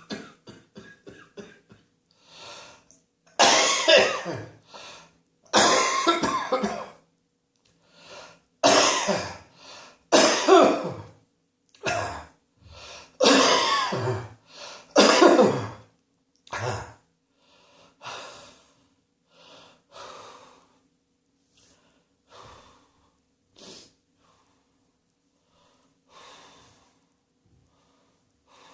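A person coughing in a long fit: repeated bouts of coughs, loudest in the first half, then fainter and sparser towards the end.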